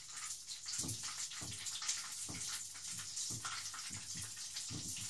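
Breaded chicken drumsticks frying in hot sunflower oil in a pan, the oil sizzling steadily, with a few soft knocks from a drumstick being turned in a bowl of flour.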